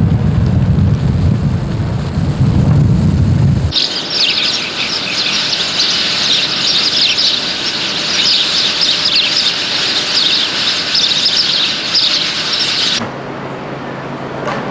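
A low wind rumble for the first few seconds, then a sudden switch to a dense chorus of small birds chirping and twittering together for about nine seconds, which stops abruptly and leaves a faint steady hum.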